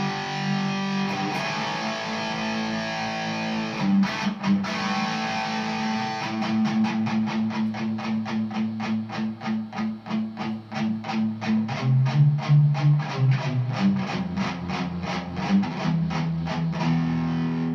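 Electric guitar through an all-tube single-channel amp and a 1x12 cabinet with a Celestion Cream speaker, in an overdriven tone styled on a boosted vintage Marshall. Held chords ring for the first few seconds, then after about six seconds the playing turns to fast, evenly picked strokes at about four a second.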